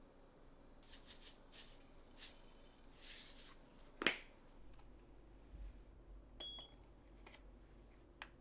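Light handling noises, rustles and small clicks, then one sharp click about halfway through and a short electronic beep a couple of seconds later.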